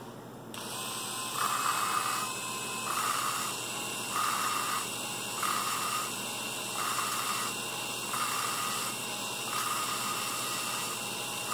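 Cordless drill running in low gear, spinning a valve against its seat in a VW 1.8T 20-valve cylinder head with 220-grit lapping compound between them. The pitch and grinding shift about once a second as the valve is pressed onto the seat and lifted off: the compound cutting the seat for a good seal.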